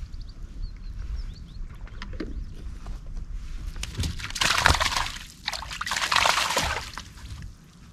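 Water sloshing and splashing as a hooped mesh fish bag is dipped into the water beside a float tube, in two bursts a little past halfway, with a few light knocks before them.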